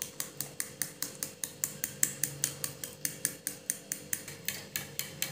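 Raw eggs being beaten by hand in a mixing bowl: a utensil clicks against the bowl in a quick, even rhythm of about five strokes a second.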